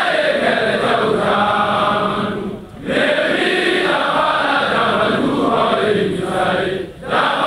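A group of voices chanting a song together, phrase by phrase, with brief breaks between phrases about two and a half seconds in and near the end.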